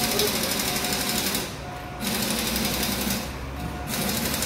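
Fast, even mechanical rattling in three bursts of about a second each, with short pauses between.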